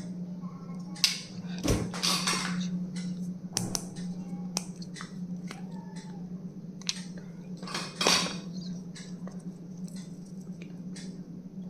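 Small objects being handled: scattered sharp clicks and short rustles, the loudest around two seconds in and again about eight seconds in, over a steady low hum.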